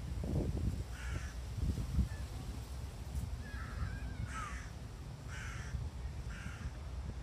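A crow cawing: four short harsh caws, the last three about a second apart, with a softer warbled call just before them. Low thumps sound in the first two seconds.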